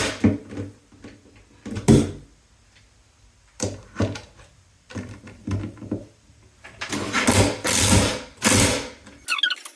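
Bolts being turned in with a hand tool during bunk bed staircase assembly: several short scraping, ratcheting bursts with pauses between, the longest run near the end.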